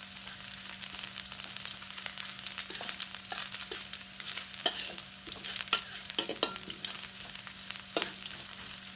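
Shallots, garlic, chilli and belacan shrimp paste sizzling in hot oil as they are sautéed until fragrant and crisp. A utensil clinks and scrapes against the pan as it stirs, with irregular sharp clicks over the steady sizzle.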